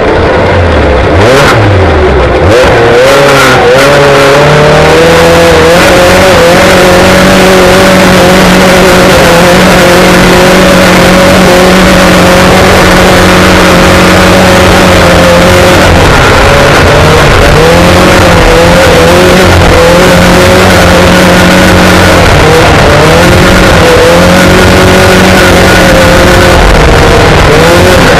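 Short-course off-road race vehicle's engine heard loud from inside the cockpit, held at high revs under way. The revs drop and climb again in the first few seconds, then dip and recover briefly a few more times later on.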